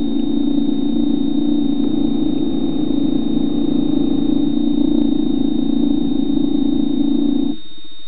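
Underwater ROV's electric thruster motors humming steadily, with a constant high-pitched whine over them. About seven and a half seconds in, the hum cuts off suddenly and a quieter steady hum is left.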